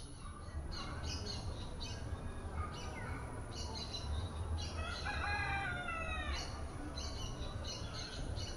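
A rooster crowing once about five seconds in, its call falling in pitch at the end, amid small birds chirping.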